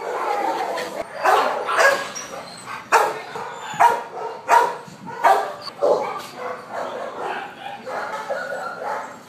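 Dogs barking in concrete shelter kennel runs: a string of sharp barks about every half second to a second, strongest through the middle and weaker near the end.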